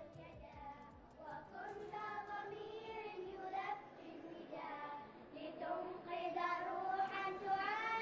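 A group of young girls singing a song together, holding several long notes.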